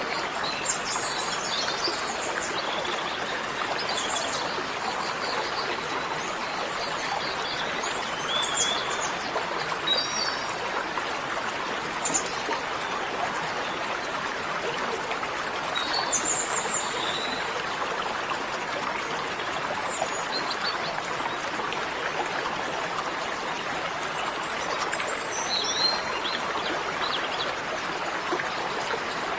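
Steady rushing of running water, with birds chirping now and then over it.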